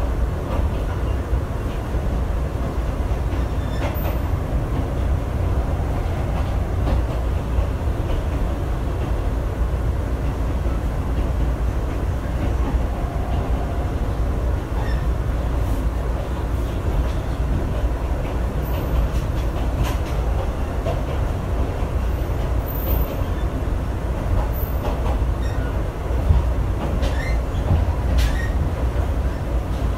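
Interior sound of a PNR passenger coach running along the track: a steady low rumble of wheels and running gear on the rails, with a few short clicks in the second half.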